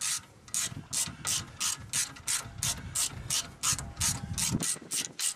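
Hand ratchet wrench clicking in quick, even strokes, about four a second, as a bolt on a car's rear brake caliper is turned.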